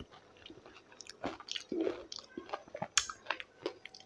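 Close-miked chewing and wet mouth smacks while eating dahi golgappa, crisp puri shells filled with yogurt. It is quiet for about the first second, then comes a run of short clicks and smacks, the sharpest about three seconds in.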